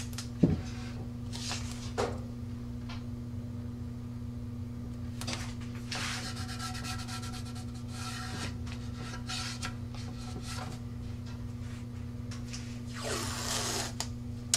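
Blue masking tape being peeled off the roll and rubbed down by hand onto the rocket tube, in several bouts of rubbing and peeling, one stretch with a thin screech. A steady low hum runs underneath.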